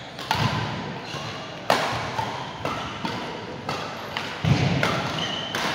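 Badminton play: a string of sharp racket-on-shuttlecock hits at uneven intervals, each ringing briefly in the hall.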